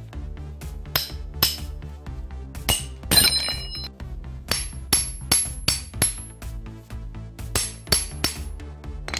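A claw hammer striking the steel head of another wooden-handled hammer: about fifteen sharp metal-on-metal clinks, each with a short high ring, in irregular groups. The loudest comes about three seconds in. Background music plays underneath.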